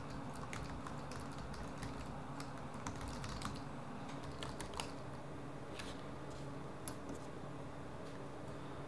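Fingers typing on a Dell laptop keyboard: quick, irregular key clicks, some harder than others, over a faint steady low hum.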